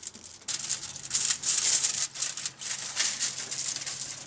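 Aluminium foil crinkling and rustling in irregular, scratchy rushes as hands press and shape a roll of raw ground meat lying on it.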